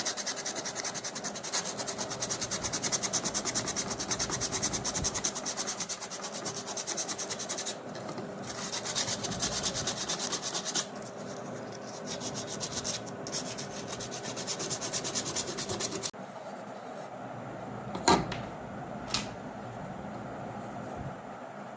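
Fast, steady rasping of an abrasive worked against PVC pipe, stopping about three-quarters of the way through, followed by a quieter stretch with two sharp clicks.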